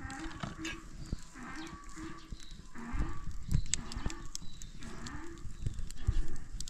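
Cattle mooing: a string of short calls about a second apart, with a few dull thumps among them.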